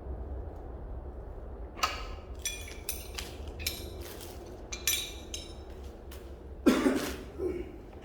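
A series of sharp clinks and knocks of hard objects being handled, with a louder thump near the end, over a steady low hum.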